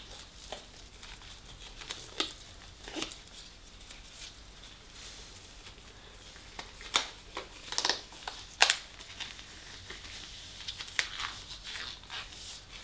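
Gloves being pulled onto the hands: scattered crinkling rustles with a few sharper crackles, busiest in the second half.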